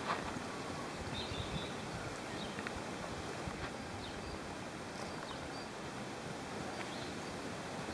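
Wind rushing on the microphone, with a few faint, short bird chirps.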